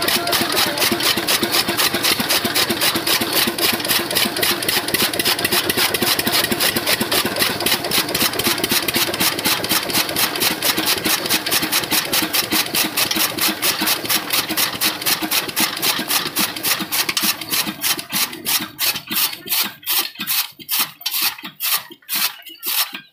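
A 12 hp single-cylinder stationary diesel engine running a belt-driven chaff cutter with a fast, even beat. About seventeen seconds in, the beats slow, space out and fade as the engine and the cutter's flywheel coast down after shut-off.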